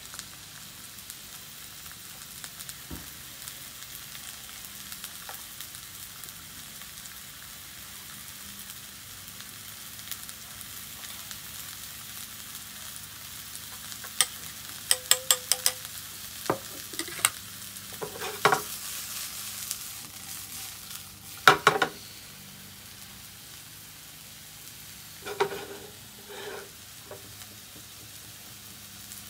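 Mushrooms sizzling steadily in a frying pan on a hot plate. Partway through comes a run of sharp metal clinks, with a few duller knocks near the end: a spoon and a pan striking a small metal pot and ceramic serving plates.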